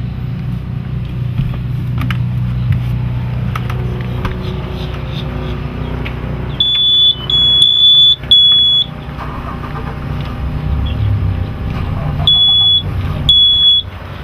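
Steady low hum of running boat machinery. Over it come high electronic beeps from the helm as the ignition is switched on: three short beeps in a row about halfway through, then two more near the end.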